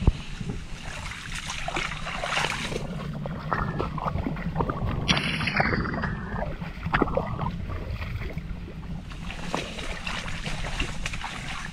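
Water splashing and sloshing in irregular bursts, with one louder falling whoosh about five seconds in, over a steady rumble of wind on the microphone.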